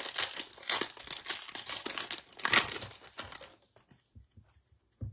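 Crinkling and rustling of a trading-card pack and its wrapper being handled, for about three and a half seconds, then a few faint ticks.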